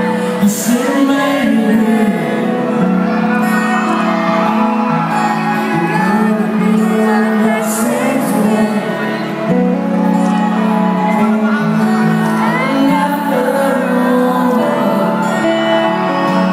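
Live band music: a male vocalist singing into a handheld microphone over electric guitars, bass and drums, played through the venue's sound system.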